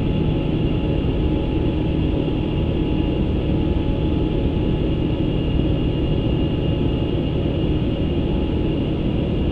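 Steady flight-deck noise of an Airbus A350 in the climb: an even rush of air and low hum, with a few faint steady tones running through it.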